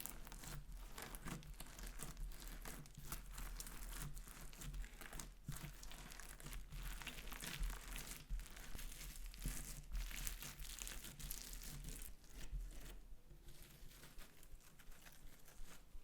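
Slime being mixed and worked by hand, a dense run of small crackling, crinkling pops and squelches. The crackling thins out near the end.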